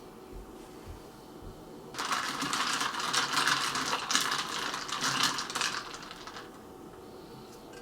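Ice cubes rattling and clinking against each other and a hard container, a dense clatter lasting about four and a half seconds that starts suddenly about two seconds in and dies away.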